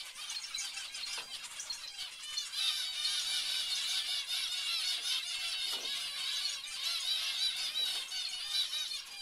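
A flock of zebra finches calling all together, a dense chatter of many short, overlapping nasal beeps. The chatter thickens and grows louder about two and a half seconds in.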